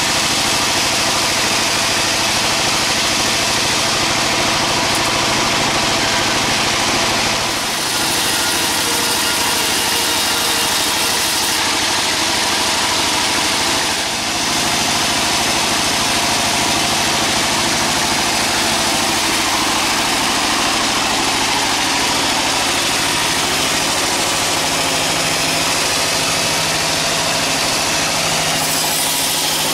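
Engine-driven sawmill machinery running steadily. Its level dips briefly twice, about seven and fourteen seconds in.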